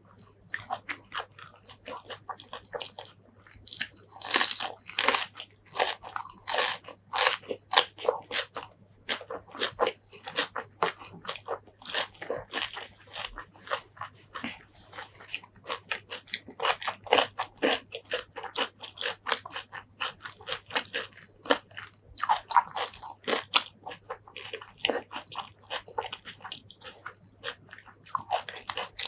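Close-miked crunching and chewing of crisp raw green vegetable stems: many quick, irregular crunches, loudest between about four and eight seconds in.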